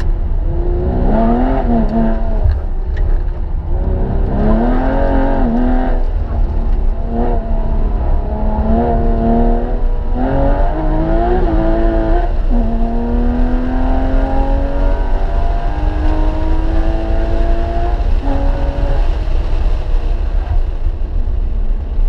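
Porsche 996 Carrera 2's flat-six engine heard from inside the cabin at track pace, revving up and dropping back repeatedly as the driver accelerates, shifts and brakes, with a long, slowly rising pull in one gear through the middle and a lift off near the end. Steady road and wind rumble lies underneath.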